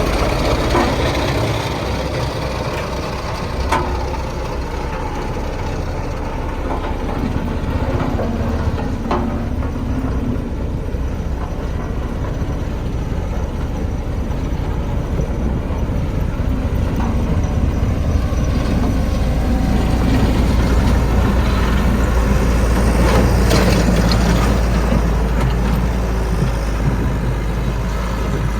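Diesel engine of heavy earthmoving equipment running steadily, with a few short knocks about 4 and 9 seconds in. A deep low hum grows stronger past the middle.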